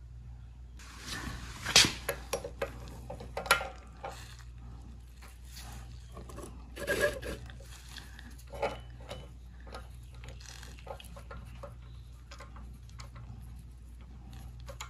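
Handling clicks and knocks as a digital micrometer is set against and clamped on the steel frames of floor jacks, loudest in a cluster between about one and four seconds in, with single knocks around seven and eight and a half seconds and lighter ticks after that. A steady low hum runs underneath.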